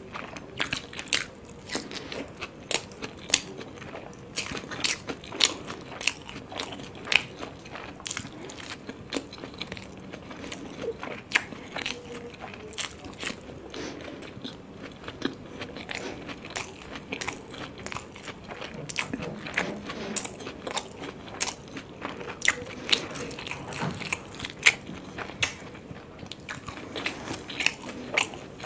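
A person chewing soft steamed vegetable momos with the mouth close to the microphone: wet mouth clicks and smacks, irregular, several a second.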